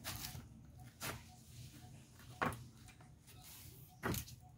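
Four light knocks and clicks, a second or so apart, as a carburetor body and a plastic bottle are handled and set down.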